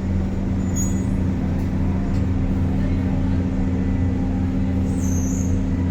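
Steady low drone of a large engine running at an even pace, with a constant low hum that does not change in pitch.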